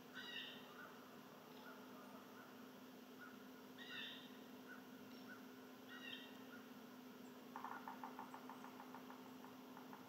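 Faint wild bird calls: three short, high calls spaced about two seconds apart with small chirps between, then a quick chattering trill that slows near the end.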